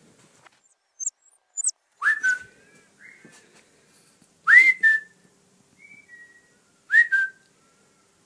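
Whistling traded back and forth between a person and a small shaggy dog copying the whistles: short whistled notes, each answered by a louder, rising whine-like whistle from the dog that levels off into a short held note, three times. Two faint high chirps come about a second in.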